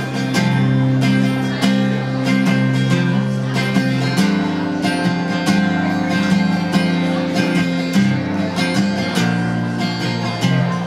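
Country music played live: strummed acoustic guitar over a band with a steady beat, an instrumental passage without singing.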